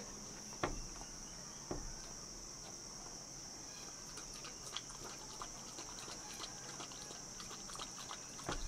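Steady high-pitched insect chorus, with a couple of faint clicks early on.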